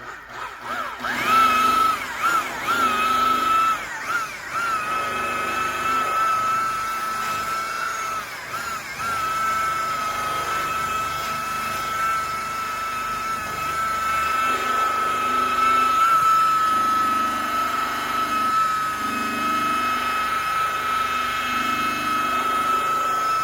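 High-speed rotary buffer starting up and running with a steady whine while polishing a sanded headlight lens. Its pitch dips and recovers several times in the first few seconds as the pad is pressed onto the lens, then holds steady.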